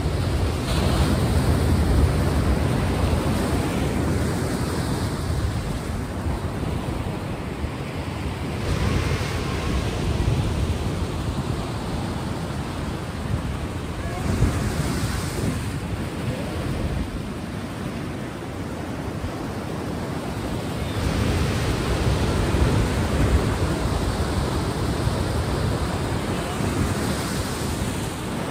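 Sea waves breaking and washing in, a steady rushing that swells and eases every several seconds.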